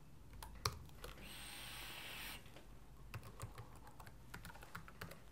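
Faint typing on a laptop keyboard, scattered key clicks as a password is entered. A soft hiss comes in about a second in and lasts just over a second.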